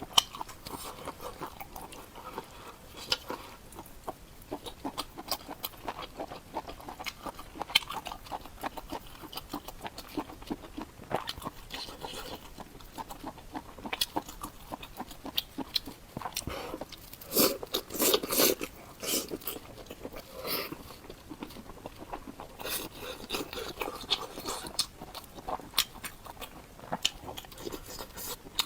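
Close-miked eating sounds: steady chewing with wet mouth clicks and smacks and crunches, a louder run of bites and chewing a little over halfway through.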